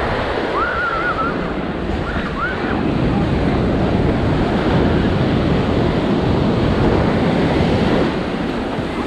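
Ocean surf washing onto a sandy beach, a steady rush that swells louder in the middle, with wind buffeting the microphone. Two faint, short pitched calls are heard in the first few seconds.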